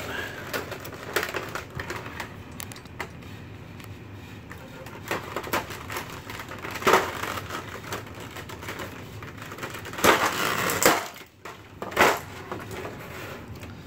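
Clear plastic blister-pack trays crackling and clicking as they are handled and pulled apart, with a few louder crackles about halfway through and near the end.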